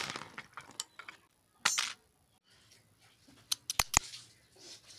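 Stationery (scissors, a pen, a pencil and a glue stick) clattering onto a sheet of corrugated cardboard: scattered sharp clicks and taps, a short scrape a little under two seconds in, and a quick cluster of sharp clicks near the end as the scissors are picked up over the cardboard.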